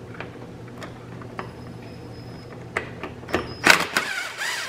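A few light clicks, then about three and a half seconds in a cordless drill runs in short bursts, its motor pitch rising and falling, driving a 10 mm bolt by the air box.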